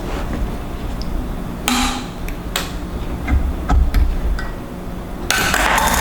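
Light clicks and taps of metal and plastic parts being handled while fitting a CPU into its motherboard socket, with a short scraping rustle about two seconds in and a longer one near the end.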